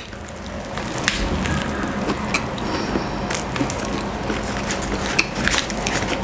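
Close-miked biting and chewing of a burger, with many short wet mouth clicks and smacks and a crinkle of the burger's paper wrapper.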